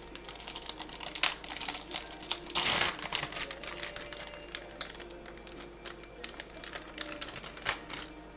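Plastic food packaging crinkling and rustling as it is handled, with many light clicks and a louder rustle about three seconds in.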